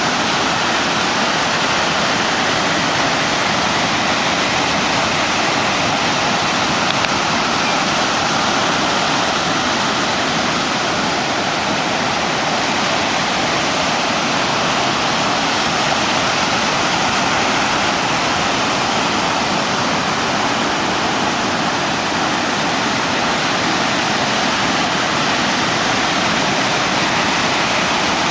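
Breaking ocean surf from a hurricane swell: a steady, continuous wash of whitewater with no single wave standing out.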